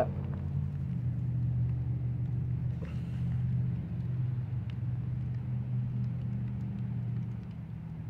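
Steady low mechanical rumble, like an engine or machine running nearby, that drops away near the end.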